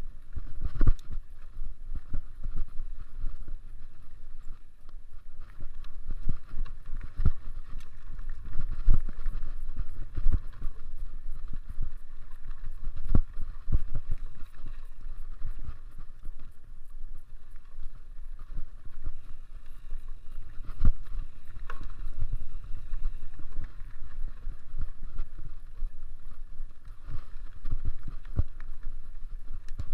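Mountain bike being ridden over rough cross-country trail: a steady low rumble from the tyres, with frequent knocks and rattles as it goes over bumps.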